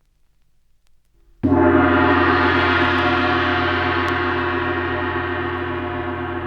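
A gong struck once about a second and a half in, its many overlapping tones ringing on and slowly fading, with a slow wavering in the low tones.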